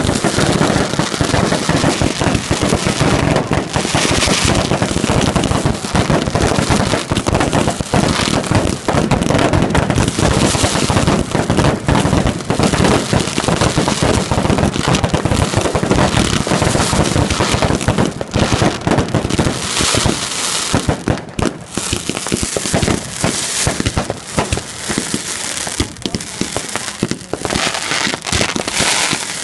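Fireworks going off in a loud, dense, unbroken run of rapid crackling pops, with brief louder hissing surges here and there.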